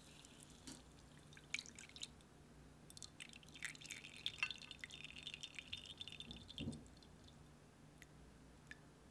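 Melted browned butter poured through a fine mesh strainer into a glass bowl: faint trickling and dripping with many small crackling ticks, busiest from about three to seven seconds in. A dull knock comes near the end of the pour.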